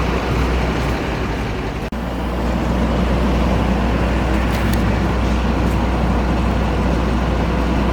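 Heavy diesel engine of earthmoving machinery running steadily at a constant pitch, with a momentary dropout about two seconds in.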